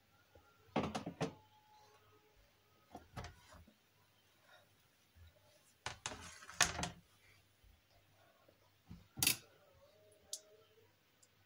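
Kitchen clatter: irregular knocks and clunks of utensils and dishes being handled, a handful of them spread over several seconds, the loudest just past the middle.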